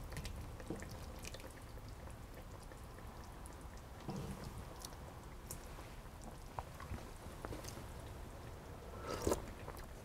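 Faint clicks and drips of sauce as a metal spoon is worked against a wooden spoon over a pot of stew, over quiet room tone with a low hum.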